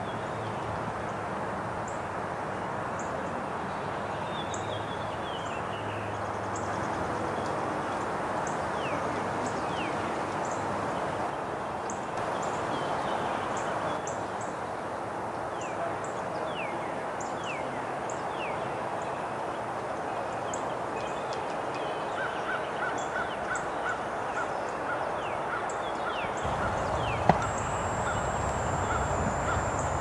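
Birds calling over a steady rushing background: many short, quick falling chirps scattered throughout. Near the end a quick regular series of short notes comes in, with one sharp click and a thin high steady whine starting.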